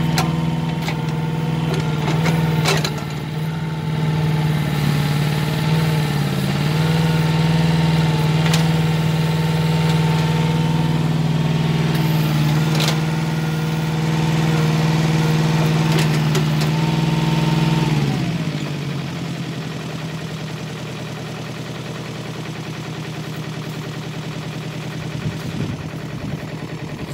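Hanix mini excavator's engine running steadily, its pitch dipping slightly as the hydraulics take load, with a few sharp clanks from the machine. About two-thirds of the way through, the engine is shut off and its pitch falls away as it stops.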